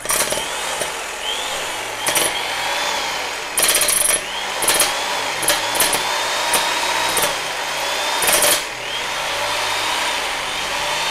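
Toshiba 1050 W electric demolition hammer with a 17 mm chisel, hammering steadily after starting abruptly, with several louder sharp bursts. It is getting only a light test run rather than being driven into a wall.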